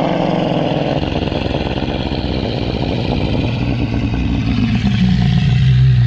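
Rhinorex dinosaur sound effect: a long, low rumbling growl following on from a roar, settling into a steady low drone near the end.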